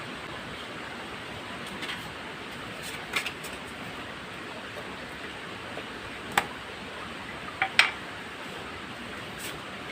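Steady hiss of background noise with a few scattered sharp clicks, the loudest a single click a little past halfway and a close pair soon after.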